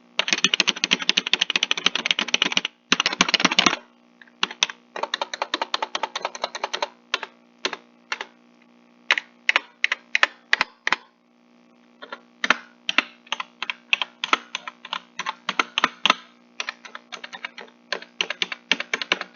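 Gaming keyboard keys being typed and mashed. There are dense rapid bursts of clicks for the first three to four seconds, then irregular single keystrokes and short quick runs.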